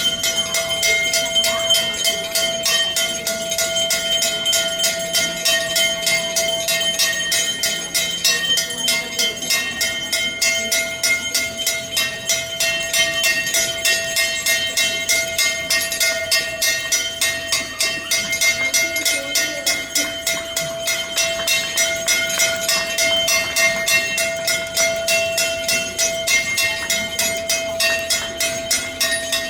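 Temple bell rung rapidly and without pause for the aarti, about three strokes a second, its ringing tones sustained between strokes.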